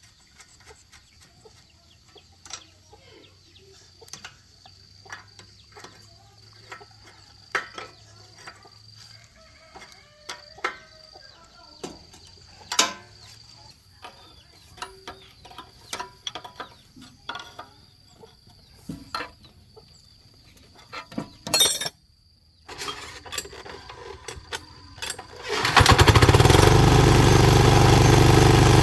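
Scattered clinks and knocks of hand tools on metal, then, about four-fifths of the way through, the 173F single-cylinder diesel engine comes in loud and runs steadily.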